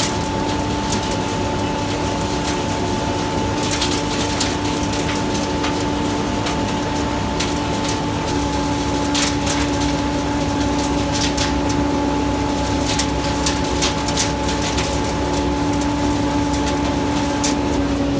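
A PN 70 tractor-mounted vacuum sweeper running on an MTZ-82 tractor: the diesel engine's steady rumble under a constant two-note whine from the suction unit, with scattered short clicks and rattles through the middle.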